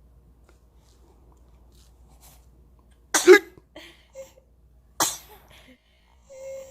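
Young infant sneezing twice, about two seconds apart: two short, sharp sneezes.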